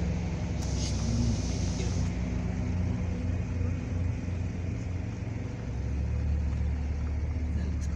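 Car engine and road noise heard from inside a slowly moving vehicle: a steady low rumble, with a brief hiss about a second in and a steadier, lower hum from about six seconds in.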